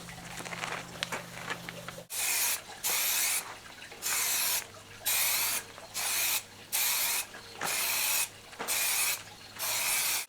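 Degreaser being sprayed onto a car's sanded paintwork in about nine short hissing bursts, starting about two seconds in.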